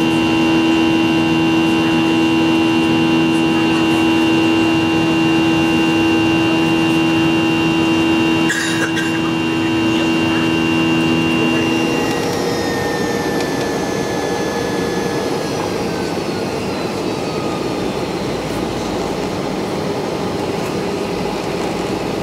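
Boeing 737 jet engines heard from inside the passenger cabin: a steady hum with several steady tones. About twelve seconds in it changes, after a cut, to a noisier rush of air and engine with a faint whine slowly falling in pitch.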